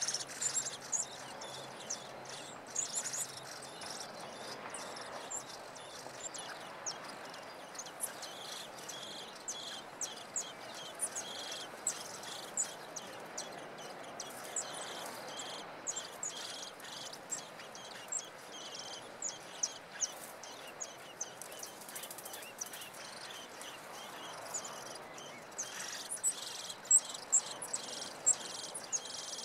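Many short, high-pitched chirps and ticks, irregular, over a faint steady outdoor hiss, with a few louder ticks near the end.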